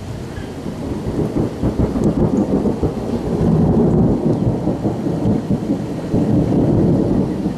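Thunder rolling after a lightning flash: a low rumble that builds over the first few seconds, peaks about halfway through and swells again near the end, with steady rain underneath.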